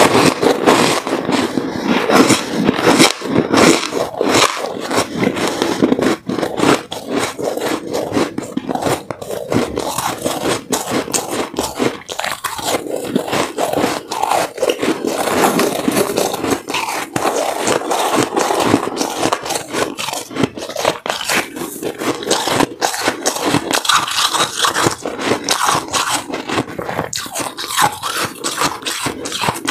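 Close-up chewing of chunks of white, snow-like ice: a dense, unbroken run of crunches as the pieces are bitten off and ground between the teeth.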